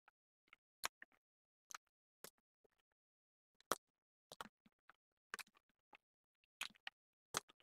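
Close-miked mouth sounds of someone chewing soft noodles with the mouth closed: sparse, sharp wet clicks and smacks, some in quick pairs, between stretches of near silence.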